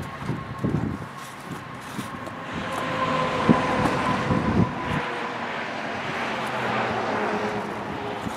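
A passing motor vehicle's steady engine hum, swelling about two and a half seconds in, with a few short knocks.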